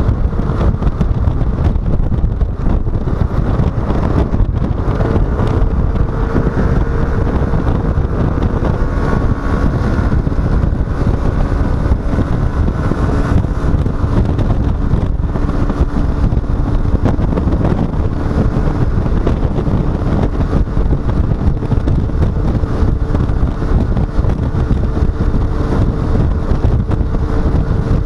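Wind buffeting the microphone while riding a Yamaha XMAX 125 scooter, with the scooter's single-cylinder engine droning steadily underneath.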